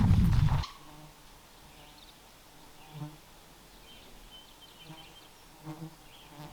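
A loud rumbling noise, like wind buffeting the microphone, cuts off suddenly just after the start. Then quiet outdoor ambience follows, with faint high chirps and a few soft thuds.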